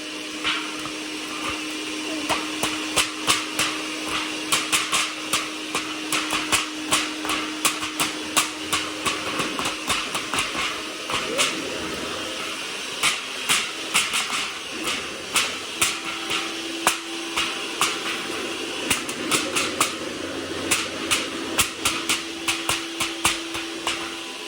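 Electric mixer running with a steady hum, its beaters knocking against the bowl with many irregular clicks.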